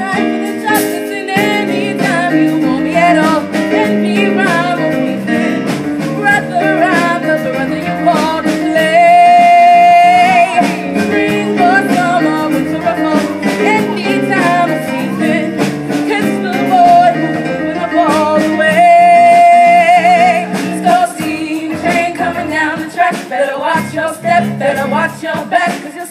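Live band music with drums, and singing over it. A long sung note is held with vibrato about nine seconds in, and again at about eighteen seconds.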